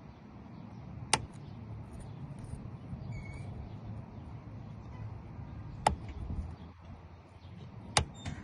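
Sharp metallic clicks from a Lishi pick working a Nissan door lock: four separate clicks, one about a second in, one near the middle and two close together near the end, over a steady low rumble.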